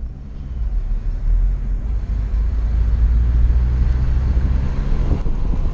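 Steady low rumble of a car driving on a rough road, heard from inside the cabin. It grows louder about a second in.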